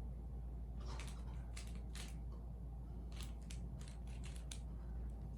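3x3 Rubik's cube being turned by hand: its plastic layers click and scrape in short, irregular runs of turns.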